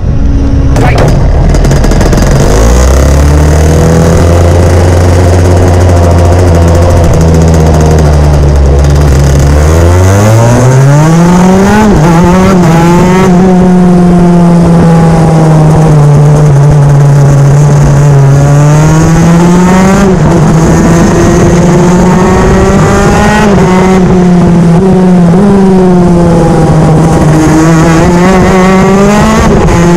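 Onboard sound of a kart's TM K9B 125cc two-stroke engine. It runs at steady low revs for about the first ten seconds, then accelerates hard and revs up and down through the corners.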